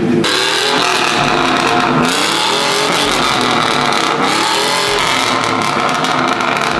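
Pickup truck engine revving loudly through its newly fitted aftermarket exhaust. It starts suddenly just after the opening, and its pitch climbs and drops several times.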